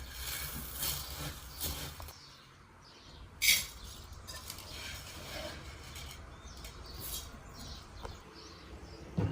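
Cooking-utensil clatter for about two seconds, stopping abruptly, then outdoor ambience with faint bird chirps and one short, sharp sound about three and a half seconds in.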